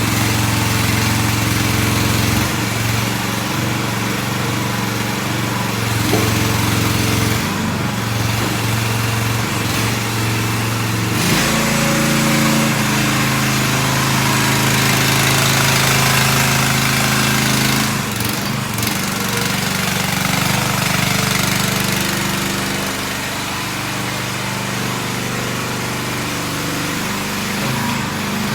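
The 420cc engine of a MIVA VA13C mini excavator running steadily, its pitch shifting a few times, around 6, 11 and 18 seconds in.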